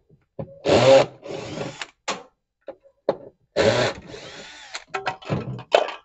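Cordless drill-driver with an 8 mm socket running in two bursts of about two seconds each, backing out the screws that hold a washing machine's transmission shift actuator, with a few small knocks between the bursts.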